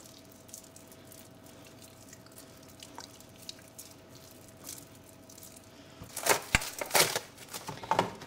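Faint, soft handling of raw pork ribs as hands rub in a dry spice rub. About six seconds in comes loud crinkling and crackling of plastic wrap being pulled over a glass baking dish.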